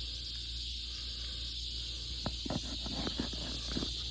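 Steady high-pitched insect chorus with a low hum underneath; a handful of light clicks and taps come between about two and four seconds in.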